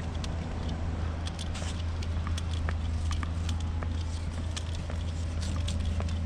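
Footsteps walking on a paved sidewalk, heard as many irregular clicks and scuffs over a steady low hum.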